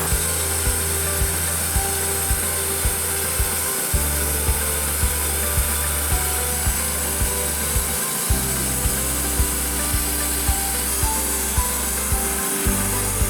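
Background music with a steady beat of about two beats a second, over a low bass line that moves to a new note every four seconds or so.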